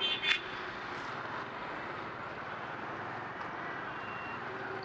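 Steady traffic noise heard from a motorcycle moving through heavy city traffic. Two short, sharp high-pitched beeps come right at the start.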